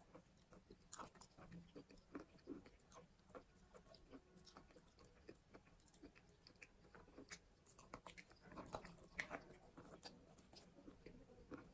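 Quiet, close-up chewing and crunching of edible chalk: irregular small crackles and snaps, with a busier run of crunches near the end.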